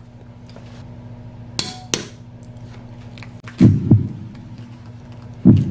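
Balut egg knocked against the table to crack its shell: two light clicks about one and a half seconds in, then dull knocks near four seconds and again near the end, over a steady low hum.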